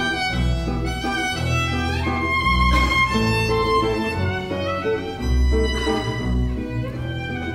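Instrumental background music with a violin melody over low bass notes that change every second or so.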